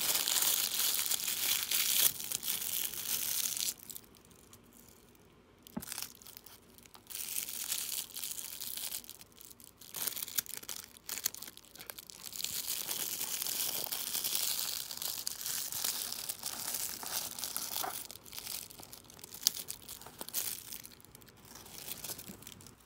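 Iridescent cellophane crinkling as hands wrap it around a piece of candy and tie it off with curling ribbon. It rustles loudly at first, goes quiet for a moment a few seconds in, then crinkles again in irregular bursts.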